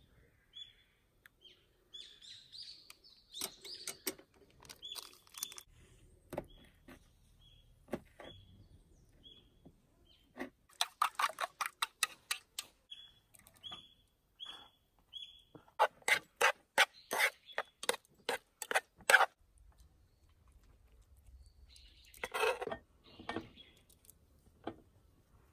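Chopsticks beating eggs in a small stainless steel cup: two runs of quick clicks, about four to five a second. Between them a bird calls repeatedly with short chirps at one pitch, and there is a brief clatter near the end.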